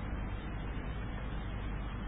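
Steady background hiss with a low hum, the recording's own noise floor, with no distinct event.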